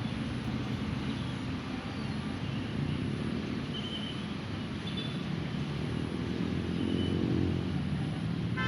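Road traffic with a steady engine rumble, as a vehicle's engine grows louder toward the end. A few short, faint bird chirps sound over it.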